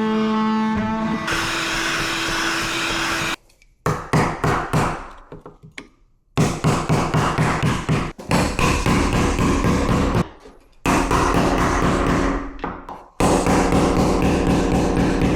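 A power tool running in bursts, switched on and cut off several times; each burst starts suddenly and winds down after release.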